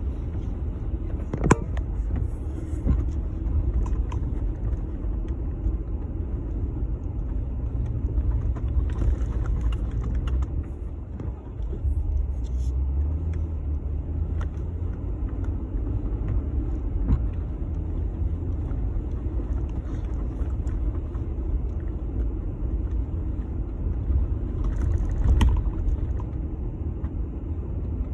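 Jeep Gladiator being driven through snow: a steady low engine and road rumble, with a few sharp knocks or clicks, the strongest about a second and a half in and again near the end.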